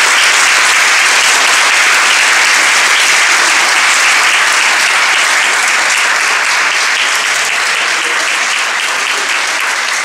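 Audience applauding, a steady dense clapping that eases slightly near the end.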